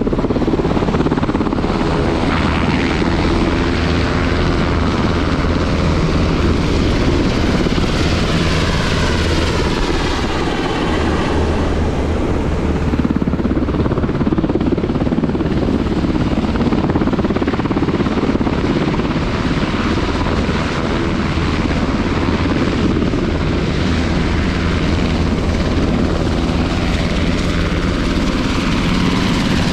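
Aircraft engines running loudly and steadily on a carrier flight deck, with whining tones that sweep in pitch a little past a quarter of the way in and again near the end.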